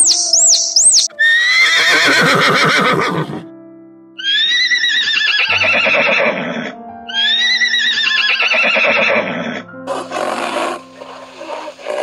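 Horse whinnying three times, each a long, shaky call that falls in pitch, over soft background music. Quick high chirps sound in the first second, and a few short rough noisy calls come near the end.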